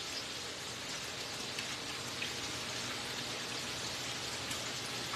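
Hot oil in a ProFry electric deep fryer bubbling around frying french fries and lobster: a steady sizzling hiss with small scattered crackles.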